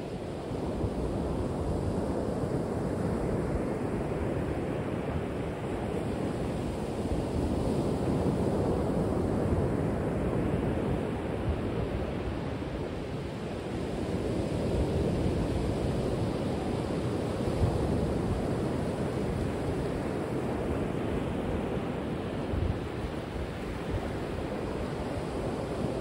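Ocean surf breaking on a reef: a continuous wash of waves that swells and eases every few seconds.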